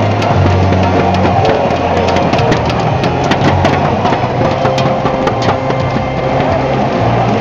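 Football stadium din: loud music with a low, stepping bass line over crowd noise, with scattered sharp claps or clicks.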